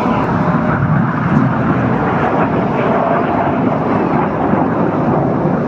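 Steady rushing jet noise from a formation of BAE Hawk T1 trainers flying overhead, each powered by a single Adour turbofan.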